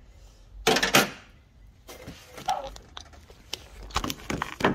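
Scattered light metallic clinks and clatter of small hand tools and hardware being handled in an engine bay, loudest about a second in, with a run of several more clicks near the end.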